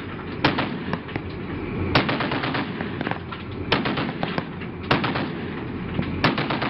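Ship-mounted .50-calibre M2 Browning heavy machine gun firing in short bursts of a few shots each, about five bursts spaced a second or so apart.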